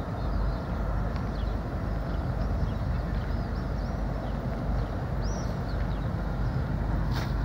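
Steady low rumble of a passenger ferry's engines as it manoeuvres into its berth, with small birds chirping over it and one sharp click near the end.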